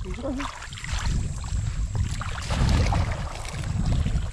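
Shallow muddy water sloshing and splashing as someone wades and gropes with his hands for fish, over a low rumble of wind on the microphone.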